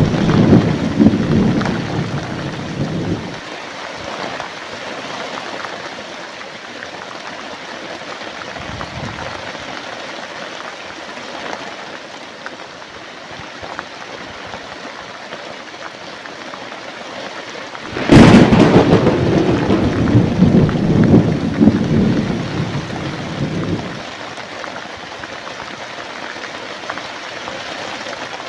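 Steady heavy rain with thunder. A rumble fades out in the first three seconds or so; then, about 18 seconds in, a sudden sharp thunderclap rolls on for about six seconds.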